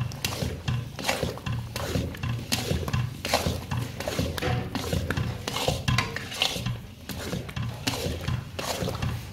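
Spatula stirring and scraping thick, ghee-laden sohan halwa around a large karahi in repeated strokes, a little more than one a second, over a steady low hum; the halwa is at its finished stage.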